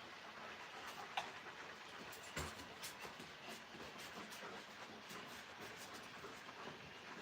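Alaskan malamutes moving about in rough play: scattered soft clicks and rustles, with a sharp click about a second in and a dull thump about two and a half seconds in, over a faint steady hiss.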